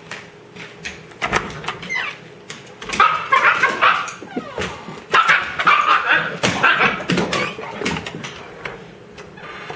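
Husky puppy vocalizing in quick bursts of yips, whines and barks with bending pitch, busiest from about three to eight and a half seconds in. Scattered sharp clicks are heard as well.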